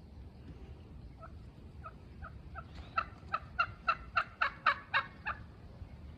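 Wild turkey calling: a run of short, evenly spaced notes, about four a second, faint at first and growing loud, stopping about five seconds in.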